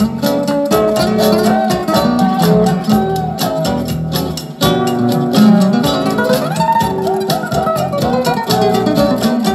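Music played back through a pair of Bose for NEC S-101VM speakers under test. It is a busy melody that dips briefly about halfway through.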